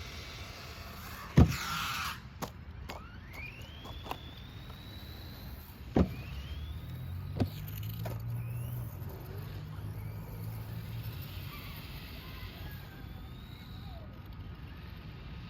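Brushless-motor RC monster trucks driving, their electric motors rising in a whine as they accelerate, with sharp knocks and clatter of the trucks landing or hitting the ground. The loudest knock comes about a second and a half in, and two more come around the middle.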